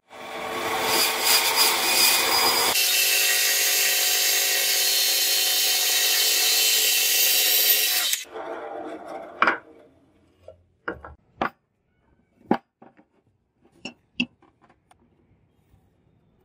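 Benchtop band saw running and cutting through a block of wood: a steady motor whine with rough cutting noise. It cuts off suddenly about eight seconds in, followed by a few short, sharp knocks and clicks.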